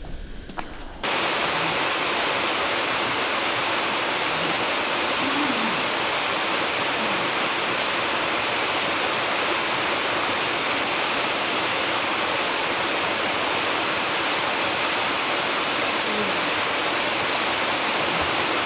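Large waterfall pouring: a loud, steady rush of falling water that begins abruptly about a second in.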